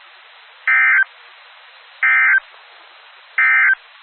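Three short bursts of Emergency Alert System SAME data tones from a weather radio broadcast, each about a third of a second long and spaced about 1.4 s apart, over a steady radio hiss. The short triple burst is the end-of-message code that closes the required weekly test.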